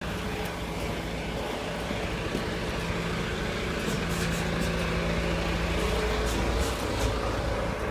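Coach's diesel engine idling steadily, left running while the coach stands at the stop.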